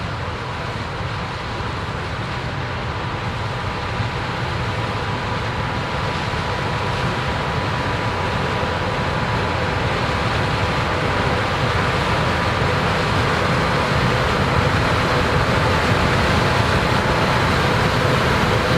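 Combine harvester running as it harvests corn: a steady machine drone with a faint whine, growing gradually louder.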